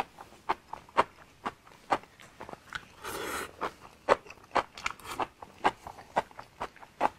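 Close-miked chewing: wet mouth clicks and crunches about twice a second, with one short slurp of noodles a little after three seconds in.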